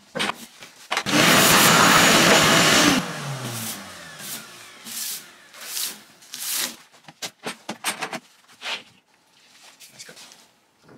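An electric power saw runs for about two seconds, then its motor winds down with a falling pitch. Knocks and clatter of clamps and wood being handled follow.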